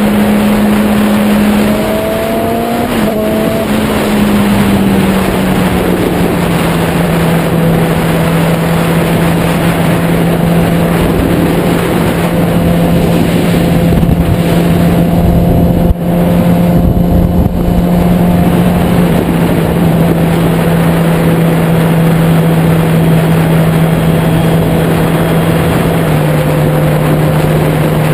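Yamaha YZF-R6 inline-four engine holding a steady cruising note during its break-in, buried in heavy wind noise on the tank-mounted microphone. The engine pitch steps down a little about five seconds in and again near the end.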